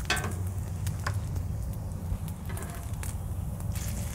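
Thin-sliced bacon strips sizzling on a Blackstone flat-top griddle. A sharp metal clack just after the start and softer clicks about two and a half seconds in and near the end come from metal utensils touching the steel cooktop. A steady low rumble runs underneath.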